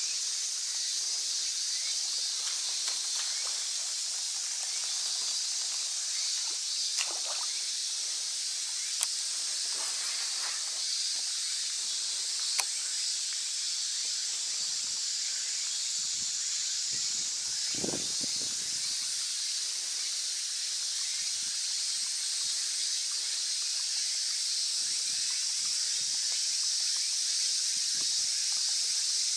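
Steady high-pitched drone of summer insects, with a few sharp clicks and a short, soft splashing sound about halfway through.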